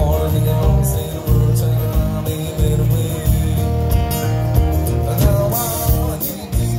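Live country-rock cover band playing: strummed acoustic guitar, electric bass and drums with cymbals, and a lead vocal over them.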